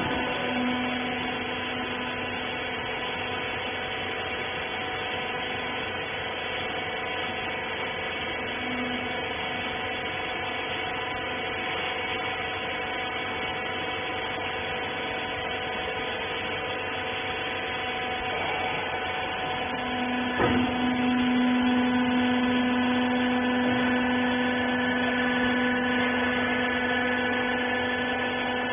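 Wiper rag baler's electric motor and hydraulic pump running with a steady hum. About two-thirds of the way in there is a click, and after it the hum is louder.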